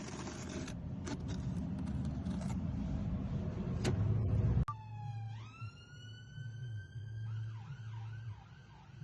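Noisy scraping and rustling with a few sharp clicks, cutting off suddenly about halfway through. An emergency-vehicle siren follows: a rising wail that holds its pitch, then switches to a fast repeating yelp about three-quarters of the way in, over a low engine-like hum.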